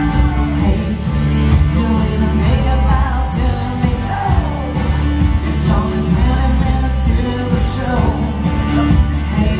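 A loud song with a singer over a heavy bass line, playing without a break.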